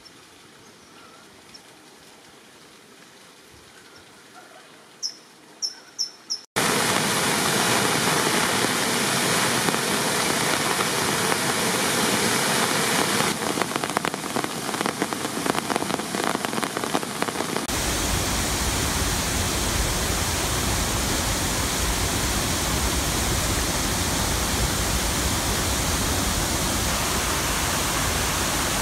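Flooded creek rushing loudly, a steady roar of fast water cut in suddenly after a quiet opening in which a few short high chirps sound. There is a second abrupt change about two-thirds of the way through, to a fuller, deeper roar.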